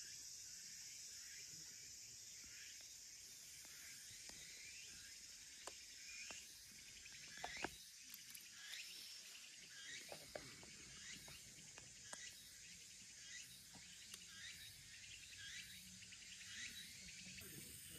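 Quiet outdoor ambience of insects buzzing steadily and birds chirping repeatedly, with a couple of faint knocks near the middle.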